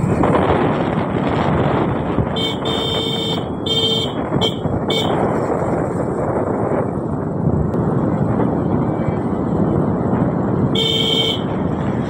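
Wind rushing over the microphone of a moving vehicle on the road, with a vehicle horn honking four short times a couple of seconds in and once more near the end.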